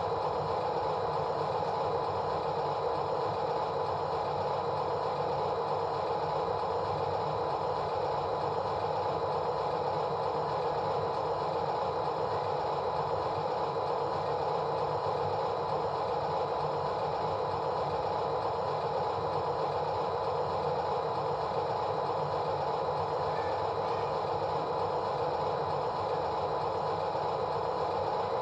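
A machine running steadily, with a continuous mechanical drone and rattle that holds an even level throughout.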